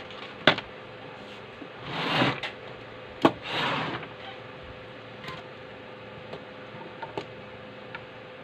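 Small items being handled and set down on a wooden workbench, with two sharp knocks, about half a second and three seconds in, and two brief rustling scrapes as wire and a solder reel are laid out. A few light ticks follow, over a faint steady hum.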